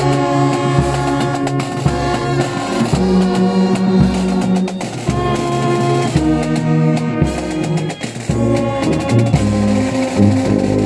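Brass band of French horns, euphoniums and tubas playing a tune in held chords, with drum strokes keeping the beat.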